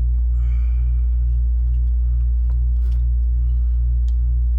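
Air-conditioning unit running: a loud, steady low hum with a drone above it that pulses about three times a second. A couple of faint clicks past the middle.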